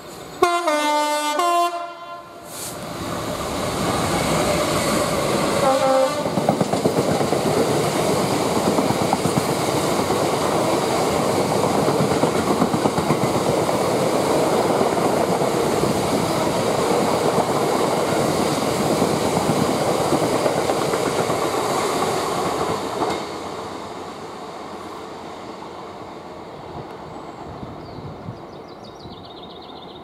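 British Rail Class 66 diesel locomotive sounding its horn about half a second in for nearly two seconds, with a shorter horn note about six seconds in. The locomotive and its long train of loaded cement tank wagons then pass loudly for about twenty seconds, wheels clattering on the rails, and the sound fades away after that.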